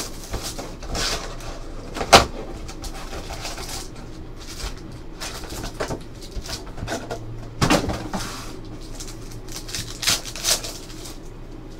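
Cardboard trading-card box and foil packs of Panini Select basketball being handled and opened: scattered crinkling and sharp snaps of packaging, the loudest about two seconds in. Near the end a pack wrapper is torn open.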